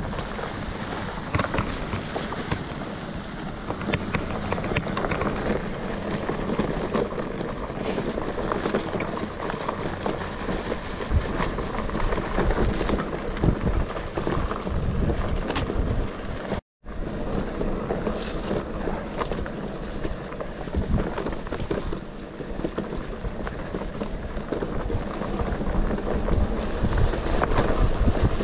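Mountain bike riding a rough forest dirt trail: wind noise buffeting the microphone over the rumble of the tyres, with frequent knocks and rattles from the bike. The sound cuts out for a moment a little past halfway.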